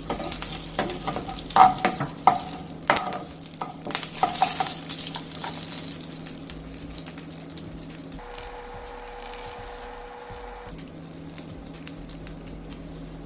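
Cumin seeds, curry leaves and dried red chillies sizzling in hot oil, stirred with a spoon that clicks and scrapes against the pan over the first few seconds, then a steady sizzle. The cumin is lightly spluttering, the stage before the chicken goes in.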